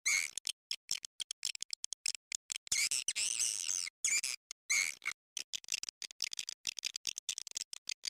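Recorded swiftlet lure call, the 'walet' calling sound played to draw swiftlets: high-pitched twittering bursts, the longest about a second long a little before halfway, alternating with quick strings of short clicking chips, with dead silence in the gaps between them.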